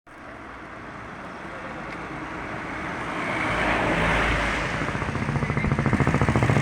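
A whooshing noise that swells louder over several seconds, then gives way near the end to a fast, even pulsing with a low hum.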